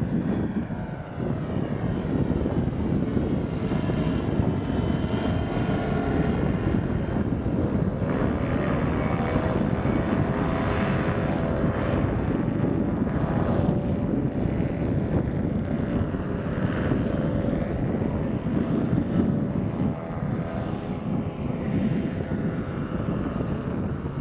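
Paramotor's small propeller engine running hard through takeoff and climb, a steady buzzing drone whose pitch wavers up and down.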